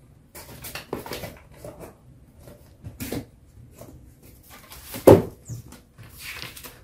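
Cardboard box and paper leaflet being handled: rustling and scraping, with a louder thump about five seconds in as the box is set down.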